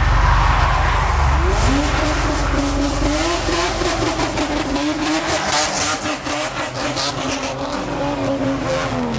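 Modified vehicle engine being revved in a rhythmic throttle 'call', its pitch rising and falling over and over, with crackling from the exhaust. It begins with a low steady rumble for about the first second and a half before the revving starts.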